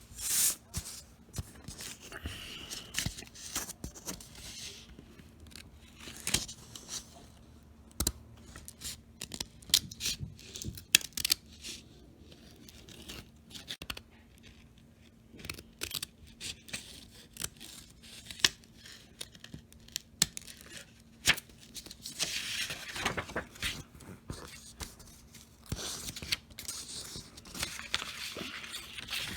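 Scissors snipping through construction paper in many short, irregular cuts, with the paper rustling as it is turned.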